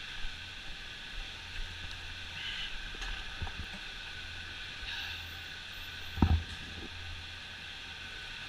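Chairlift station machinery running with a steady hum and whine, a few light knocks, and a louder clunk about six seconds in.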